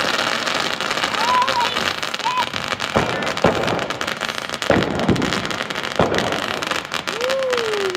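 Multi-shot consumer firework cake firing: continuous crackling with several sharp bangs in quick succession from about three to six seconds in.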